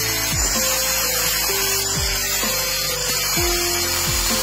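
Angle grinder disc grinding into a steel ratchet wrench held in a vise: a steady, high-pitched grinding hiss with a whine in it. Background music with a regular beat plays underneath.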